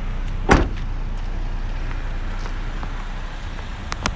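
Steady low rumble of road traffic outdoors, with one sharp heavy thump about half a second in and a couple of light clicks near the end.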